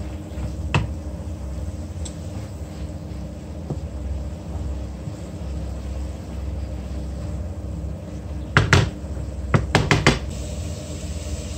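A wooden spoon knocking sharply against a pan of sautéing Swiss chard and carrot, a few times in quick succession near the end, with a single click about a second in. A steady low hum runs underneath.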